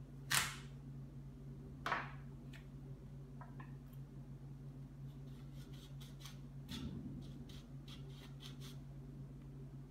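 A knife cutting a green apple on a countertop: two sharp cuts in the first two seconds, then a run of small crisp clicks as the halves are sliced, over a steady low hum.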